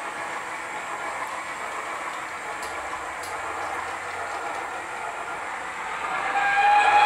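Steady rushing running noise of model trains on the layout, with a few faint clicks. About six seconds in, a steam locomotive whistle from a DCC sound decoder starts, holding one steady note and getting louder.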